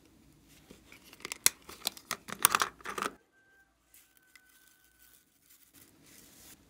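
A hard plastic toy container being handled and opened: a quick run of sharp plastic clicks and crackles lasting about two seconds, cutting off abruptly about three seconds in.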